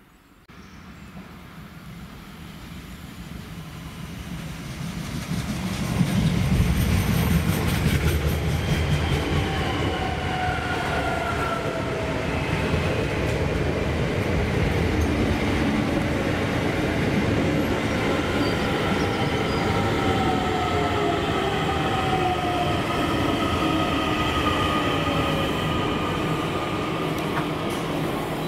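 DART electric multiple unit approaching and rolling slowly in along the platform. It grows loud over the first six seconds, then holds a steady rumble with several whines that slowly fall in pitch as the train slows: braking for the station stop.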